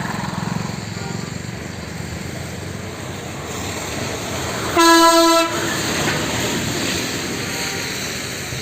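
A horn sounds once in a short single-pitched blast about five seconds in, over steady background noise.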